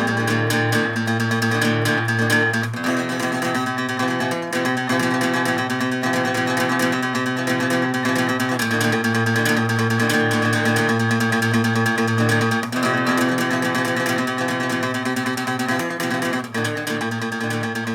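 Background music: plucked and strummed acoustic guitar, changing chords every few seconds.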